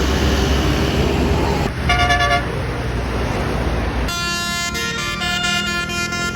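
Bus engine rumbling close by, with a short horn chord about two seconds in. About four seconds in, a multi-trumpet telolet/basuri air horn starts playing a quick tune of changing notes.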